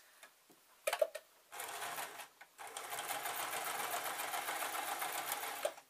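Frister+Rossmann electric sewing machine stitching a seam through leatherette: a couple of sharp clicks about a second in, then a short run, a brief pause, and a steady run of rapid needle strokes that stops shortly before the end.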